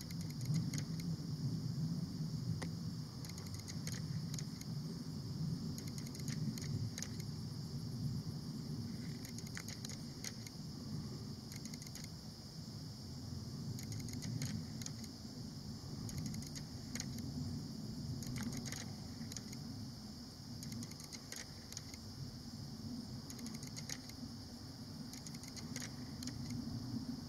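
Steady outdoor background noise: a low rumble with a constant high-pitched hum above it and scattered faint clicks.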